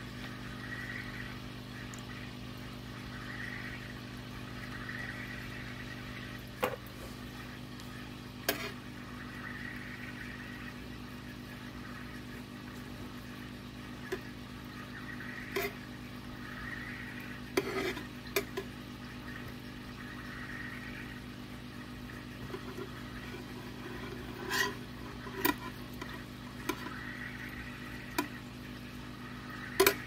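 Scattered light clicks and taps of hands and tools setting Bucephalandra plants into dry aquarium soil, with the loudest knocks about 8, 18, 25 and 30 seconds in. A steady low hum runs underneath.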